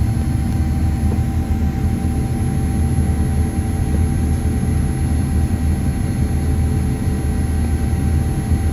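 Cabin noise of a Boeing 787-9 with its Rolls-Royce Trent 1000 engines under power: a steady low rumble with a few faint steady tones over it.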